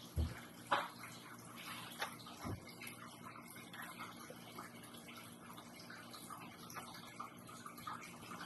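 Faint handling noise from a foam 3D puzzle model: a few light knocks in the first couple of seconds, then scattered small taps and rubbing over a low steady hum.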